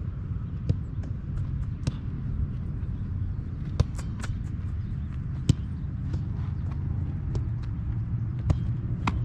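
Scattered sharp thuds of soccer balls being struck in a goalkeeper shot-stopping drill, about seven in all, the loudest about four and five and a half seconds in, over a steady low rumble.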